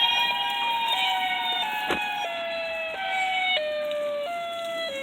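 Outdoor storm warning siren sounding a steady tone, its pitch slowly falling in small steps. A single click about two seconds in.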